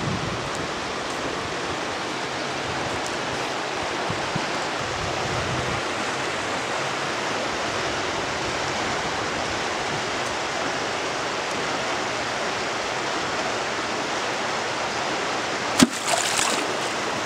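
Steady rush of water flowing over a concrete dam's spillway blocks. Near the end, a homemade wooden spear is jabbed into the water with one sharp, loud splash.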